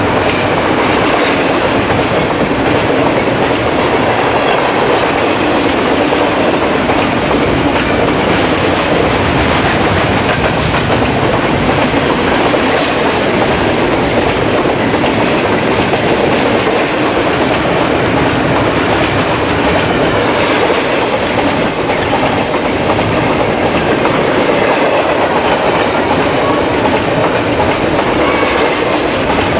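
BNSF double-stack container train's well cars rolling past close by: a steady, loud rumble of steel wheels on rail, with a continuous run of clicks and clatter.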